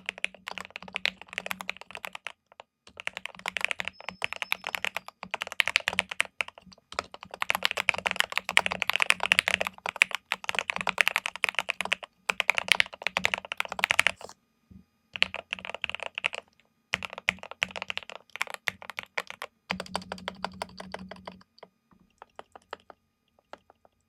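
Typing on a Keychron K8 Pro mechanical keyboard with Gateron Milky Red linear switches and wheat keycaps, dampened with foam, tape and polyfill: fast runs of keystrokes broken by short pauses, with a creamy, deep, thocky sound.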